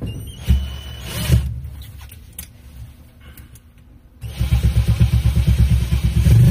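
Cordless drill driving a self-drilling screw into sheet metal, running in one long, rapidly pulsing burst from about four seconds in. Before it come a few short knocks from handling the metal plate.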